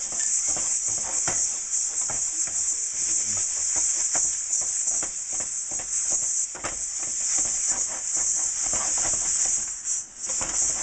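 Coarse salt being scrubbed around the inside of a hot wok with a wad of paper towel: an uneven, gritty scraping of many quick strokes, over a steady high hiss from the gas burner on high. The salt scrub is lifting old carbon out of the wok's pores.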